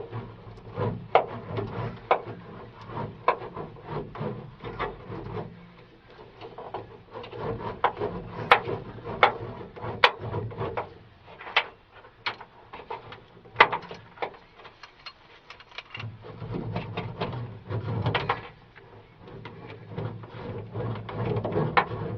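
Hand roller pressing self-adhesive sound deadening mat onto a truck cab's inside roof panel: a low rolling rumble in stretches, broken by irregular clicks and knocks.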